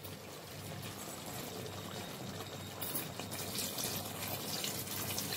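Water poured in a thin stream into thick chicken curry gravy, a steady pouring splash that grows a little louder toward the end.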